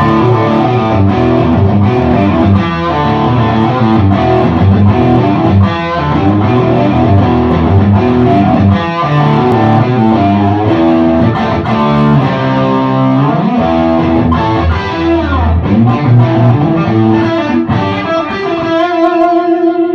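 Sunburst Les Paul-style electric guitar with double-black PAF humbucking pickups, played through an amplifier: picked single-note lines, riffs and chord hits with string bends, then a chord left ringing near the end.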